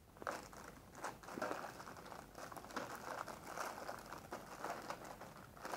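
Packaging being handled, crinkling and rustling irregularly as items are taken out of the package.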